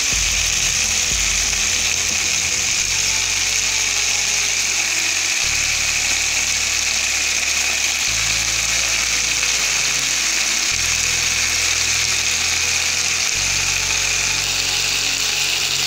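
Fish frying in a pan with a steady sizzle, under background music whose low notes change about every two and a half seconds.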